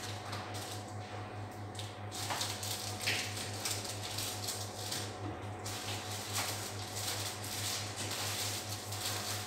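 Packaged groceries being picked up and handled, with their plastic wrapping rustling and crinkling irregularly, denser from about two seconds in. A steady low hum runs underneath.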